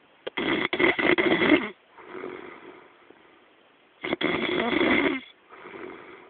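A very drunk man snoring in his sleep: two loud snores about four seconds apart, each followed by a softer breath.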